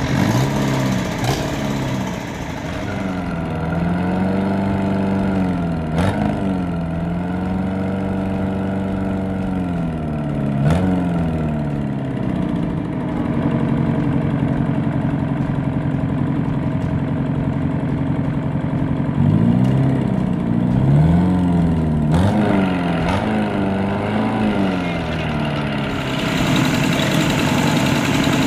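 Isuzu Panther four-cylinder diesel engine, running bare on a test stand: it idles and is revved up and down several times, its pitch rising and falling, with steadier idling between. A few sharp clicks come through over the engine.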